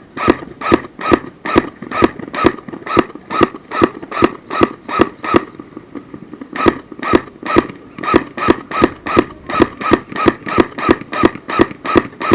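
Airsoft gun firing single shots in a fast, steady series, about two and a half shots a second, with a pause of about a second near the middle.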